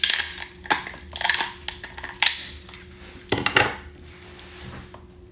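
Boiled lobster claw shell being cut with kitchen shears and cracked apart by gloved hands: a run of sharp crackling crunches, the loudest about three and a half seconds in.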